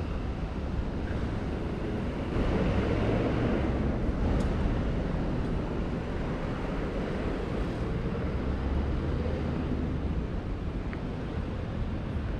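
Street traffic noise, with wind buffeting the microphone. It grows louder for a couple of seconds about two seconds in, as a vehicle passes.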